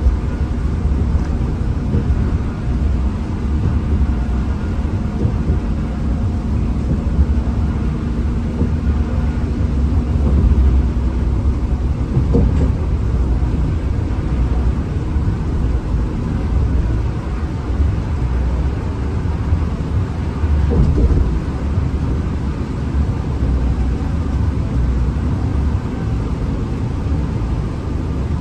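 Hino RM 280 bus running along a highway, heard as a steady low engine and road rumble. A couple of faint knocks come through, about twelve seconds in and again near the end.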